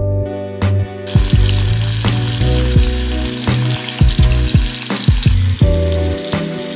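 Background music with a steady beat and bass line, over a bathroom tap running into a sink, a hiss that comes in about a second in.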